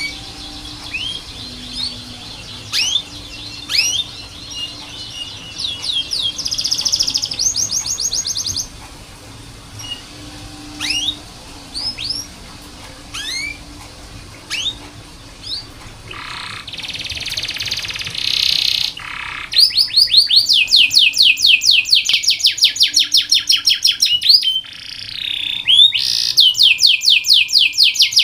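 Domestic canary singing: separate upward-sweeping chirps, then fast trills, a harsh buzzy stretch past the middle, and long rapid rolls of repeated notes in the last third. This is canary master song, played to teach young or reluctant canaries to sing.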